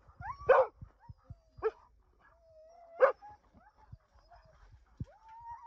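Sled dogs barking: three loud, sharp barks, with yips and whining in between. About five seconds in, a dog starts a long, held whine.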